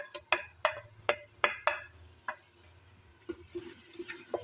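A metal spoon knocking sharply about seven times against the plate and the rim of an aluminium pressure cooker, shaking ground spices into the pot. About three seconds in, the spoon starts stirring the masala frying in oil, with a steady sizzle and scraping against the pot.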